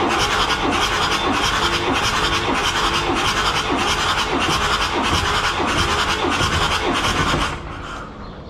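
Diesel engine turning over on its starter motor without firing, cranked for a compression test, with an even run of pulses from its compression strokes. The cranking stops suddenly about seven and a half seconds in, after the first cylinder builds about 20 kgf/cm² on the gauge.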